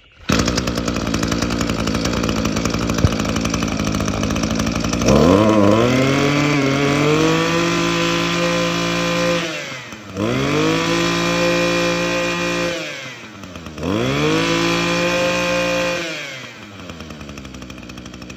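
Echo two-stroke brush cutter engine catching at once, idling, then revved up to high speed and held three times, dropping back to idle after each. It starts very easily.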